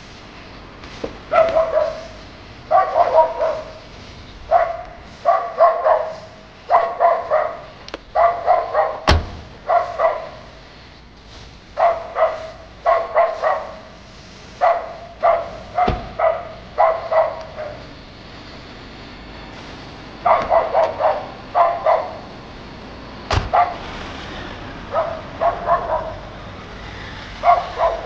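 A dog barking over and over in short runs of two to four barks with brief pauses, and three sharp knocks spread through the stretch.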